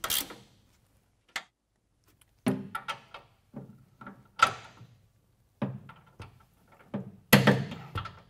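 Ratchet wrench and socket working on the steel hitch bolts: scattered metal clicks and clanks with brief ringing as the half-inch bolts are snugged up, the loudest knock about seven seconds in.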